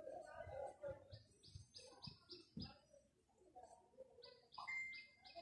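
Whiteboard marker writing: faint strokes with two runs of short, high squeaks at about five a second.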